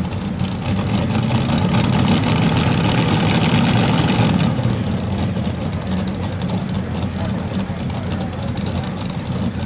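Supercharged modified pulling tractor engines running while hooked to the sled, swelling louder over the first few seconds, then settling back to a steadier idle.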